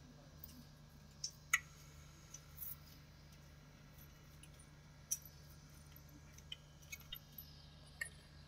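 Quiet background with a steady low hum and a few scattered short, light clicks or taps, the sharpest about a second and a half in and again about five seconds in.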